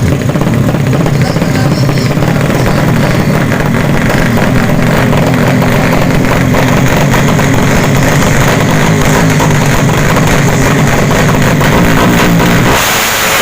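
Drag-racing underbone motorcycle engines with tuned horizontal engines, running loud and steady at high revs.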